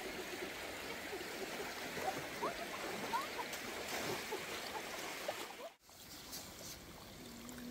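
Water trickling and gurgling, with many small bubbling blips over a steady wash; it cuts off abruptly about six seconds in, leaving a quieter background.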